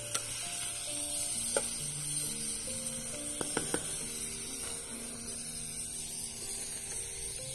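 Food sizzling over a campfire as a steady hiss, with a few sharp clicks about a second and a half in and again around three and a half seconds. Soft background music of slow, held notes plays underneath.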